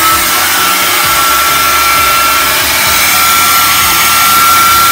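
Hand-held blow dryer running on its low setting: a steady high whine over loud rushing air.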